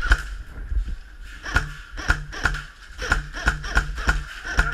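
Airsoft guns firing single shots in quick, uneven succession, about two to four a second; each shot is a sharp crack with a short ring, with a brief low hum between shots.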